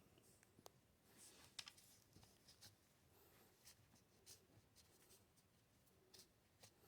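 Near silence, with faint light clicks and scratchy rubbing of small metal rifle parts being handled.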